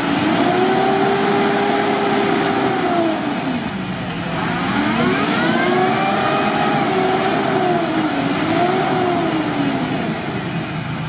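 Mitsubishi L200 pickup's engine revving under load as it churns through deep muddy water, the pitch rising and falling several times and dipping low about four seconds in.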